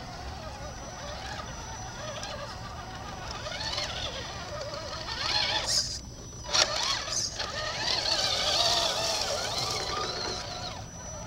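Small electric motors and gearboxes of scale RC crawler trucks whining as they crawl over dirt, the pitch rising and falling with the throttle. It is loudest from about halfway to near the end, as one truck drives right past.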